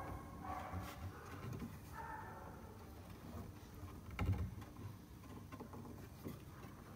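Faint handling sounds of a wooden moulding strip being held and shifted against a wooden cabinet side while it is lined up for marking, with one short knock about four seconds in.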